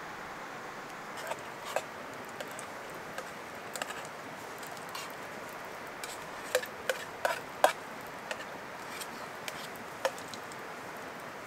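Rain: a steady hiss with scattered, irregular sharp taps of single drops striking close by, a cluster of the loudest taps a little past the middle.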